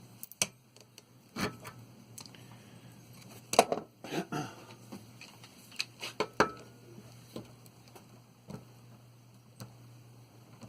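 Metal parts of a water heater pressure relief valve clicking and clinking as they are handled and pried apart, with scattered small knocks and two louder clanks about three and a half and four seconds in.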